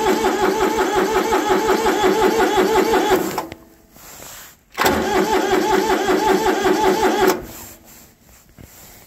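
Kubota compact diesel tractor engine being cranked by its starter without glow-plug preheat, in two attempts. The first ends about three seconds in; the second starts near five seconds and lasts about two and a half seconds. Each is a rhythmic chugging of compression strokes, and the engine never fires: a diesel that is not fully warm and won't start in the cold without its glow plugs.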